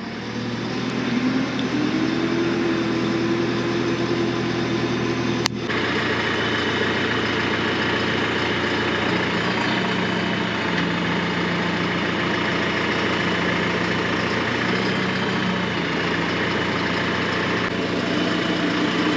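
An engine running steadily, picking up over the first couple of seconds, with a sharp click about five and a half seconds in. This is most likely the machine handling a log onto the sawmill's lift.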